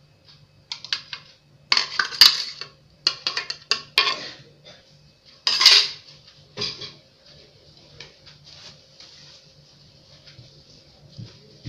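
Glass dessert bowls and a plastic blender jug clinking and clattering on a tabletop as shaved ice is poured and the bowls are handled: several bursts of knocks and clinks in the first six or seven seconds, then only light scattered clinks.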